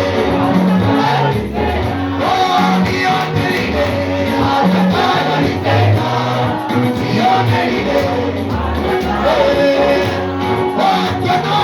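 Live gospel praise music with singing: a band with a steady bass line and drums under a sung melody.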